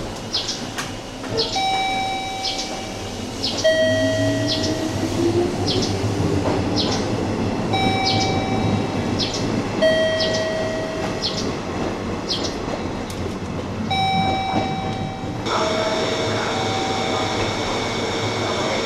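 JR Kyushu 103 series 1500 electric train pulling out of the station, its traction motor whine rising in pitch a few seconds in. Over it a two-tone electronic warning chime repeats about every two seconds, with light clicking. About three-quarters through the sound cuts abruptly to a steadier hum while the chime goes on.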